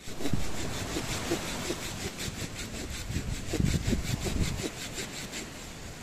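Hand saw cutting through wood with quick, even back-and-forth rasping strokes, about five a second, easing off near the end.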